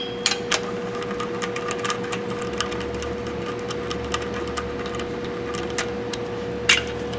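Light metallic clicks and ticks from a 14 mm socket on a hand-spun nut driver running cylinder head bolts down into a Suzuki Samurai 1.3L engine, with a few sharper clicks just after the start and one near the end. A steady background hum runs underneath.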